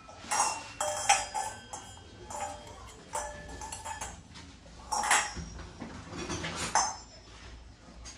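Brass utensils being handled and knocking against each other: a series of clinks and knocks, several of them leaving a short metallic ring.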